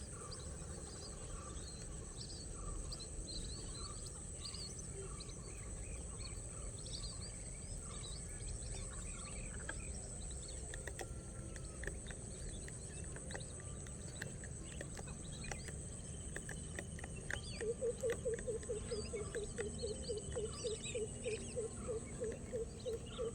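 Outdoor natural ambience: a steady high insect drone with scattered short bird chirps. About two-thirds of the way in, a rapid series of low repeated calls begins, about four a second.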